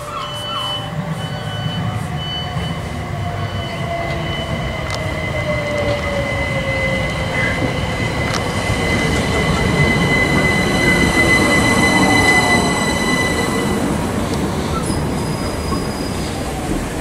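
Class 387 Electrostar electric multiple unit running into the platform. Its wheels and running gear rumble louder to a peak about twelve seconds in, under a steady high squeal and an electric whine that slowly falls in pitch.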